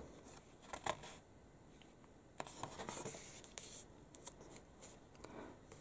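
Faint rustle of magazine paper as a page is turned and the hand slides over it, with a few soft paper clicks; the rustling swells for a second or so around the middle.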